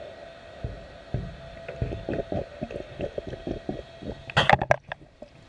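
Water gurgling and sloshing around a camera held underwater in an aquarium tank, over a steady hum. A short burst of louder splashing comes about four seconds in.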